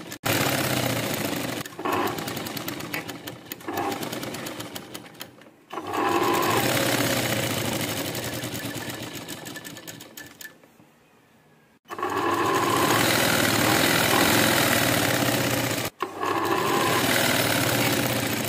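Sewing machine stitching a seam to join a kurti's lining, running in several bursts with short stops. One long run fades out about ten seconds in, followed by a pause of about a second before the machine starts again, with one more brief stop near the end.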